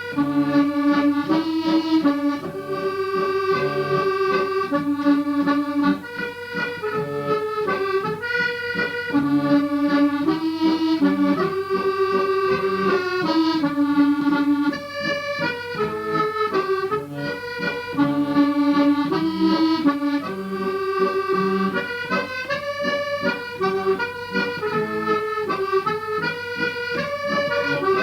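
Accordion playing a tune from a medley: a moving melody over a repeating bass accompaniment.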